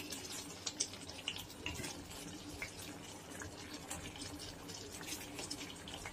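Faint wet crackling and scattered small pops from tomato-onion gravy cooking in an aluminium kadhai, with soft drops as potato pieces slide in from a plate.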